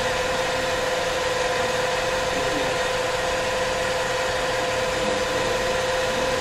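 A DC motor coupled to a dynamometer, running steadily under load at about 1,300 rpm. It makes an even whirring hum: a constant mid-pitched tone over a fan-like hiss.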